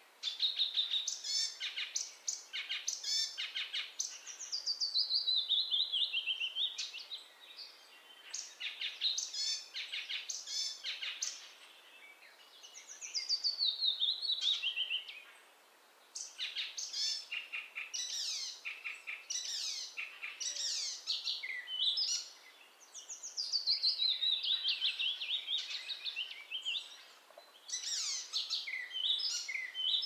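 Icterine warbler singing: a fast, varied song of quickly repeated notes mixed with long falling runs of slurred notes, in phrases several seconds long broken by short pauses.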